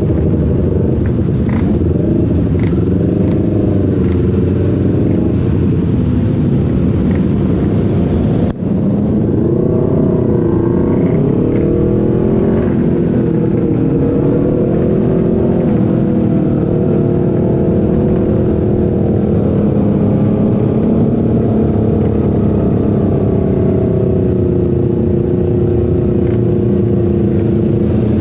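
Sport motorcycle's engine heard from the rider's seat at low road speed, the revs rising and falling over the first half and then holding fairly steady. A brief break in the sound about eight and a half seconds in.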